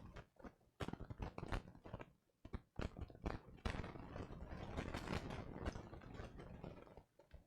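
Plastic building bricks being handled and pressed together: a run of sharp clicks and snaps, then from about three and a half seconds in a longer stretch of denser clicking and rustling of loose pieces.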